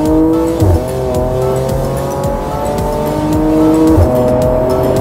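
Audi S4's supercharged 3.0-litre V6 accelerating hard, heard from inside the cabin through a custom 2.5-inch exhaust with an X-pipe and Dynomax VT mufflers. The pitch climbs steadily and drops sharply at two upshifts, one less than a second in and one about four seconds in.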